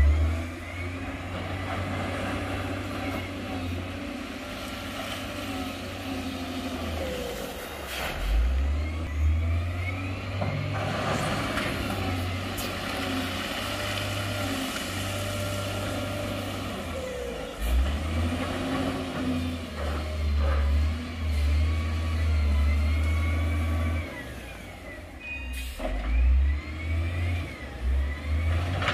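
Heavy diesel dump truck and wheel loader engines working, revving up and down under load, with a few sharp knocks.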